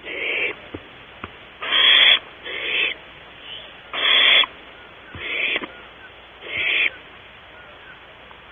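Barn owls in a nest cavity giving harsh, hissing screech calls, six in about seven seconds, each lasting about half a second.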